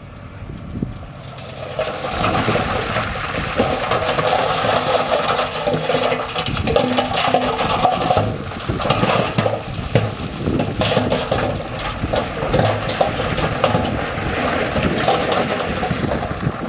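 A load of rocks sliding and tumbling out of a tipping dump truck's bed: a rushing, clattering rattle of stone that builds about two seconds in and keeps going.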